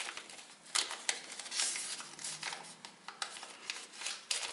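A paper banknote and a small paper envelope rustling and crinkling as they are handled and folded together, with a few sharper crackles.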